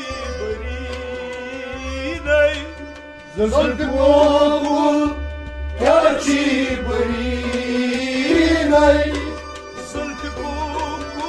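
Kashmiri Sufi devotional song: a man's voice singing over steady harmonium chords and a bowed string instrument. The voice swells into long held phrases about three and a half seconds and six seconds in.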